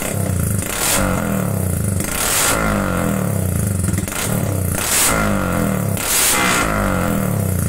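Motorcycle engine revved through an Ara Racing Exhaust 'Star 1' competition exhaust, loud and blipped over and over, about every second and a half.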